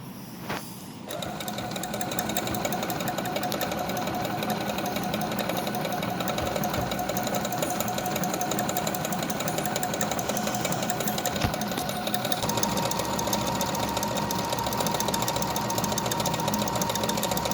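Brother FS101 computerized sewing machine running steadily, sewing a cut-work stitch along a cloth edge. It starts about a second in, and its hum steps up to a higher pitch about twelve seconds in.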